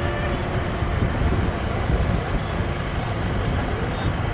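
Steady vehicle and road noise with a heavy low rumble.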